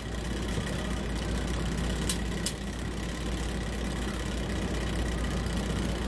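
A steady low hum under a faint even background noise, with two short faint clicks a little after two seconds in.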